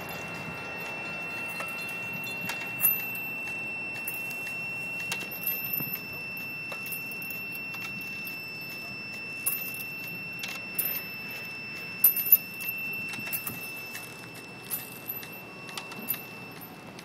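Metal fittings and chains of a swing-set generator rig clinking and jingling at irregular intervals, over a steady high-pitched whine that fades out near the end.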